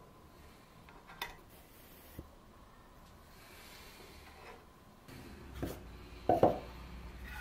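A birch wood chest and its small metal hinges being handled on a wooden workbench: faint rubbing and a couple of small clicks, then two sharp wooden knocks near the end as the box pieces are set down.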